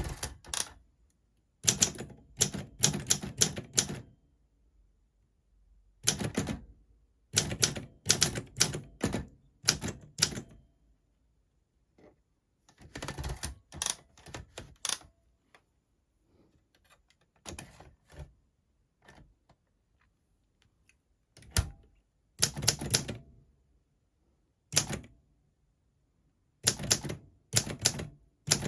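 Olympia SM4 manual portable typewriter being typed on: sharp key strikes in quick runs of several strokes, broken by short pauses, with a softer run of strokes midway.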